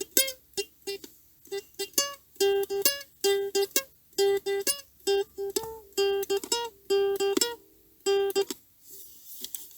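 Short, clipped chords strummed on an acoustic plucked string instrument in a steady rhythm, each cut off quickly, with brief silences between them. The strumming stops about a second before the end, leaving only faint sound.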